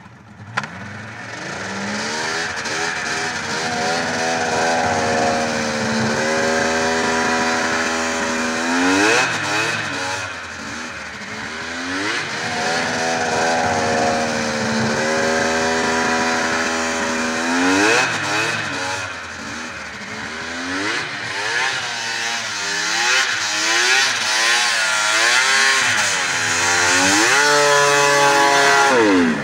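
1996 Polaris XCR triple snowmobile's three-cylinder two-stroke engine revving hard while the sled spins donuts in snow. Its pitch rises and falls in long swoops, dipping sharply about every nine seconds.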